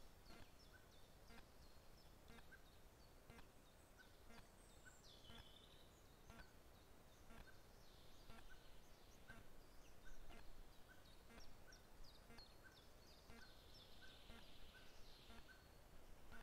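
Near silence: faint outdoor forest ambience with a faint regular ticking about twice a second and a few faint high, falling bird calls.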